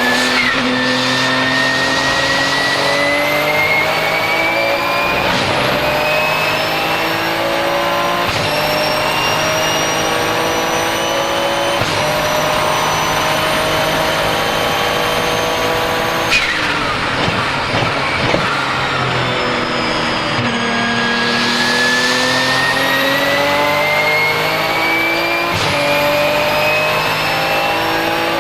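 Porsche 997 GT2 RSR's twin-turbo 3.9-litre flat-six under hard acceleration, climbing through several quick sequential-gearbox upshifts with a rising turbo whistle over the engine. About two-thirds of the way through the revs drop sharply as it lifts off and downshifts, with a few short pops. Then it pulls hard through the gears again.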